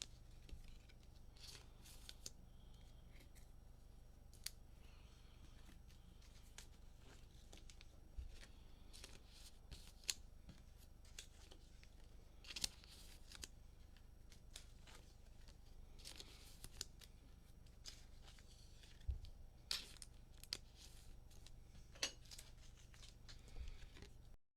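Faint scattered rustles and sharp little clicks of trading cards and packs being handled, over a steady low hum.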